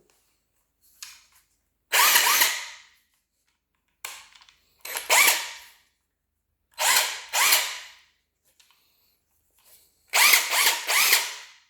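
Porter Cable 20V Max cordless impact wrench running free in several short trigger pulls, each burst spinning up and winding down.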